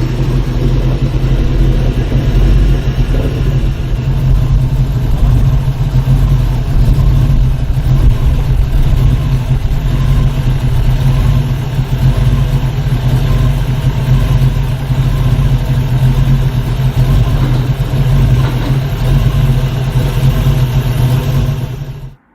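Ford Mustang engine running steadily with a low, loud drone while the car is driven, then cutting off abruptly near the end.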